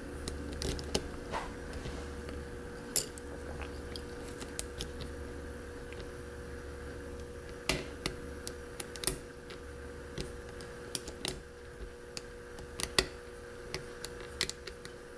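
Small, irregular metallic clicks and ticks of a hook pick and tension wrench working the pin stack of a 6-pin mortise lock cylinder during single-pin picking, over a steady low hum.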